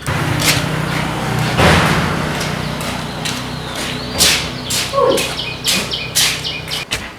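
A machine hums steadily under a run of sharp metal knocks and clanks from truck tyre work, with a short burst of hiss about one and a half seconds in. The hum starts and stops abruptly.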